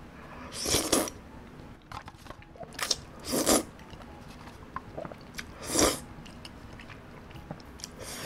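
Close-miked slurping and chewing of mul-jjajang noodles: three long slurps about two and a half seconds apart, a couple of shorter ones, and soft wet chewing clicks between them.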